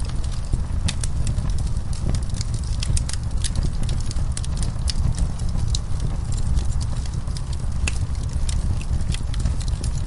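Wood fire in a fireplace crackling, with frequent sharp, irregular pops and snaps over a steady low rumble of burning logs.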